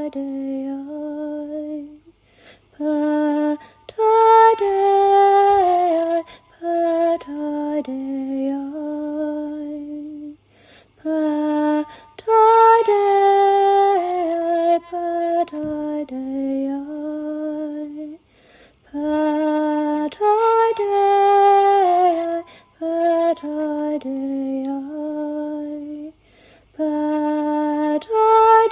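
A solo female voice singing slow, wordless, lullaby-like chant phrases with no accompaniment. The same melodic phrase pattern comes round about every eight seconds, with short pauses between phrases.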